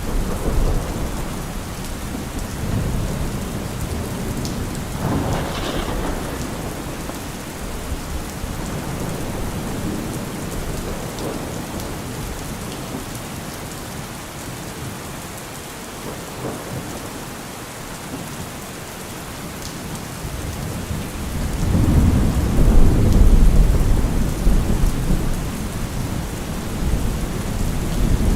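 Steady rain falling, with rolling thunder: a short sharper clap about a fifth of the way in, and a long, loud, low rumble starting about three quarters of the way through.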